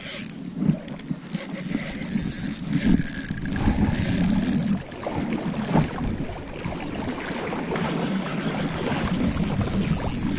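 Spinning reel being cranked with a king salmon on the line, the handle and line clicking now and then, over a steady rush of river water and wind on the microphone.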